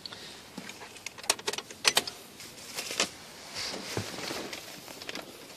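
Light handling clicks and rustles: a few sharp ticks about a second or two in, another about three seconds in, with faint rustling between.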